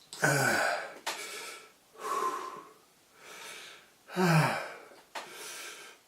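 A man gasping and breathing hard against the burn of a ghost pepper chili, with hissing breaths in and out. A short groan falls in pitch near the start, and another comes about four seconds in.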